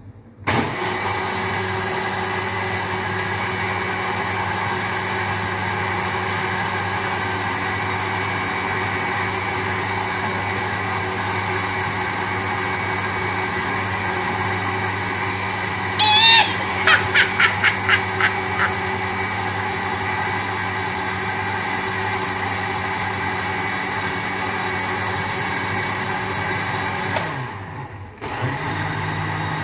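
Panasonic countertop blender motor running steadily, blending avocado, milk and ice cubes into a shake. About halfway through, a short run of loud high chirping pulses sounds over it. Near the end the motor winds down, stops for a moment and starts again.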